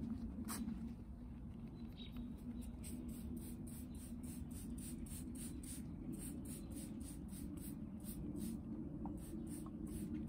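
Trigger spray bottle of degreaser squirting in a long run of quick, short sprays, several a second, onto a greasy drip tray, over a steady low hum.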